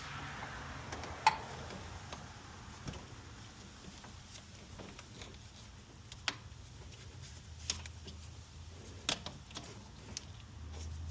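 Scattered sharp clicks and clinks of hand tools and parts being handled during the belt and fan work, the loudest about a second in, over a faint low hum.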